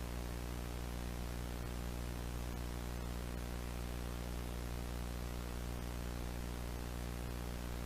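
Steady electrical hum with a constant static hiss, unchanging throughout.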